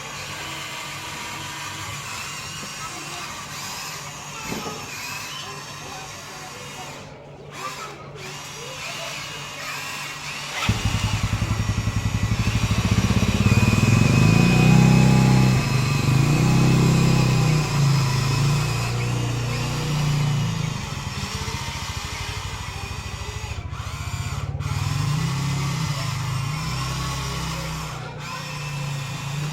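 Electric motors of a Huina remote-control toy excavator whirring as it works. The whir grows much louder about a third of the way in and then rises and falls in pitch as the arm and tracks move.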